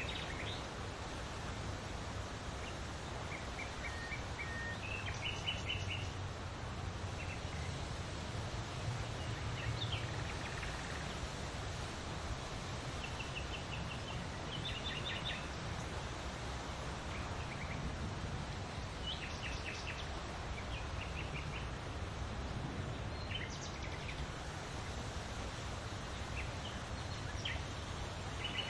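Wild birds singing in short chirps and trills every few seconds, over a steady rustle of leaves in the wind.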